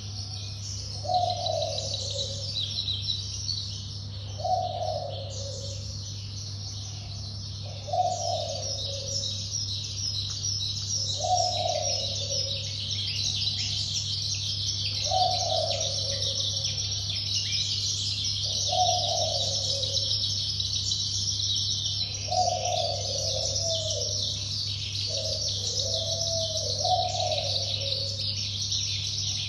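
Birds chirping and twittering without a break, with a lower, short call repeating about every three and a half seconds, over a steady low hum.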